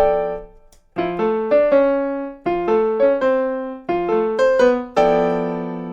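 Piano playing a cumbia melody line as arpeggiated chords. Short rippling figures start about every second and a half, and it ends on a chord left to ring and fade.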